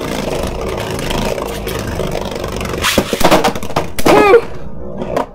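Custom 3D-printed Beyblade Burst tops whirring and scraping around a plastic stadium, with frequent small clicks. About three seconds in, a second top is launched late with a short loud rip, and the tops then clash with sharper knocks.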